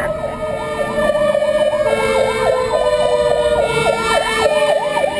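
Fire-truck sirens sounding together: a mechanical siren's steady wail slowly falling in pitch as it winds down, overlaid by an electronic siren yelping rapidly, about four sweeps a second.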